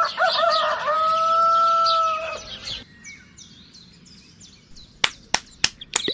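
A rooster crowing once: a few short rising notes, then one long held note that fades out a little after two seconds in, with small birds chirping. Near the end come four sharp clicks in quick succession.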